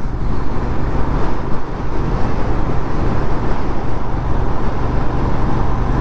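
Motorcycle riding at a steady speed on a wet road: a steady low engine hum under wind and road noise.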